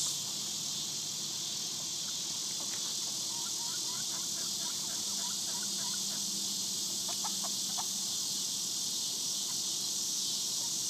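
Steady, high-pitched chorus of insects, with a few faint short clucks from hens, about three seconds in and again near eight seconds.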